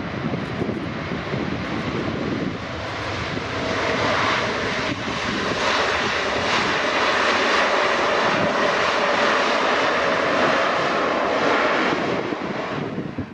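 Jet airliner passing close, its engine noise a loud, steady rushing wash that swells about three to four seconds in and holds, then drops away abruptly at the very end.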